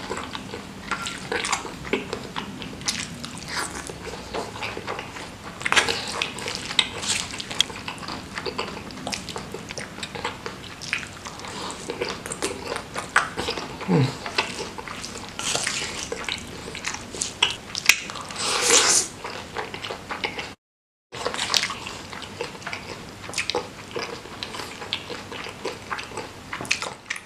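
Close-up mukbang eating sounds: wet chewing, lip smacks and slurps of soft, saucy seblak, with sharp breaths blown through pursed lips against the chilli heat. A longer hissing breath comes about two-thirds of the way through.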